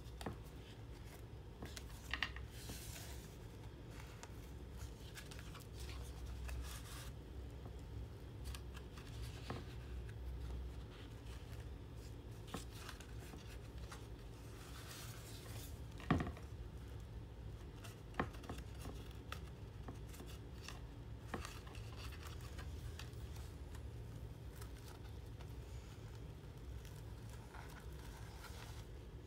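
Thick, layered pages of a handmade mixed-media art journal being turned by hand, the paper, lace and burlap rustling and crinkling in patches. A few sharp taps or clicks stand out, the loudest about halfway through.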